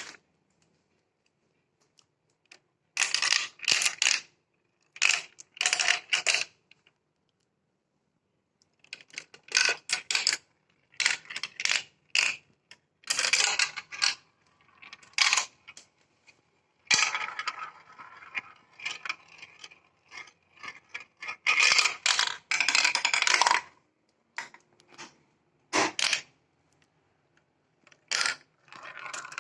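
Marbles rolling and clattering through plastic marble-run track, in irregular bursts of rattling clicks that last from under a second to about two seconds, with near-silent pauses between them.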